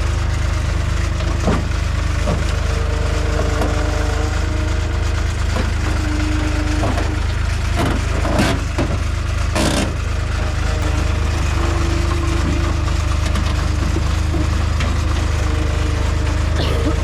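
Skid steer's diesel engine running steadily under work, a loud low drone, with a couple of sharp knocks about eight and ten seconds in.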